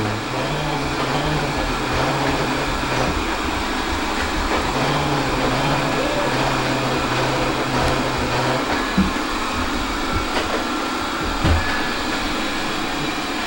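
Steady rushing noise of a running motorized appliance. A low hum comes and goes over it, with a couple of small knocks in the second half.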